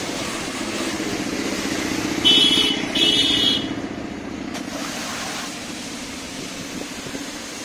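Aimex electric pressure washer running, its pump humming under the hiss of the water jet, easing off after about five seconds as spraying stops. About two seconds in, two short high-pitched tones cut through, the loudest sounds here.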